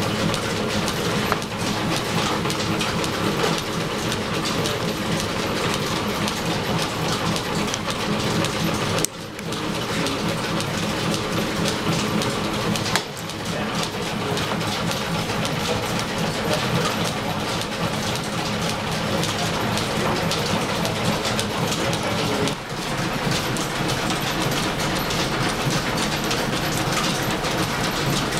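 Belt-driven shop machinery running off a steam-powered line shaft, with a milling machine cutting gear teeth: a steady, dense clatter of belts, pulleys and machines. It dips briefly about 9 and 13 seconds in and again near 23 seconds.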